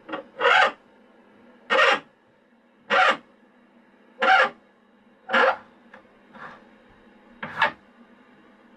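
Short, harsh rasping calls repeated about once a second, seven or eight times, one weaker than the rest just past the middle, over a low steady hum.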